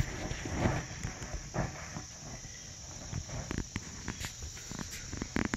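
Insects calling steadily in the background, with scattered soft thumps and rustles as a foal steps on the dirt and nudges and mouths a large fabric-covered ball, a small cluster of knocks coming near the end.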